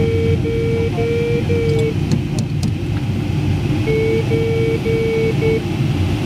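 Glider's audio variometer beeping in short, evenly spaced tones, about two a second, which signal that the glider is climbing. The beeps stop for about two seconds in the middle and then resume. A steady rush of airflow past the cockpit runs underneath.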